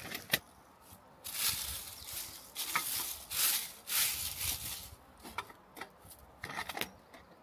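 Gloved hands scraping and rustling dry leaf litter and soil while working an aluminium Sherman live trap down flat against the ground, in a series of rough swishes, with one sharp click about a third of a second in.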